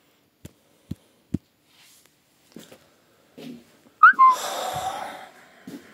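Three soft knocks, then about four seconds in a brief squeaky rising whistle runs straight into a loud breathy exhale lasting about a second, like a sigh blown out.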